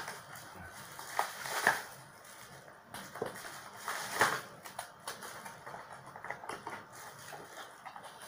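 Plastic wrapping crinkling and crackling as it is pulled off an item by hand, in irregular bursts with a few louder crackles.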